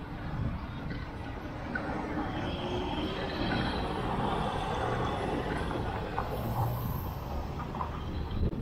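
Busy city road traffic heard from a bicycle: a motor vehicle passes close, its noise swelling in the middle and then easing off.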